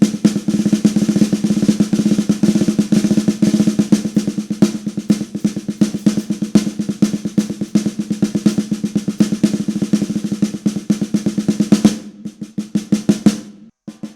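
Snare drum dampened by a Big Fat Snare Drum Donut XL pad laid on its head, played in fast, dense strokes like a roll. About twelve seconds in it thins out to separate hits.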